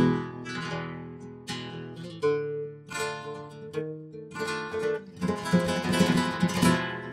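Acoustic guitar music: single plucked notes ringing out and fading, then a busier run of fast strummed notes about five seconds in.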